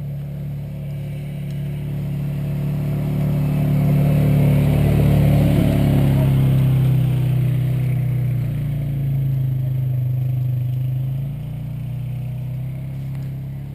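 An engine running steadily with a low hum. It grows louder to a peak about four to seven seconds in, then eases off.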